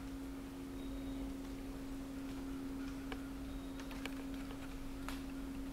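A steady faint hum held at one unchanging pitch, with a few light clicks about three, four and five seconds in.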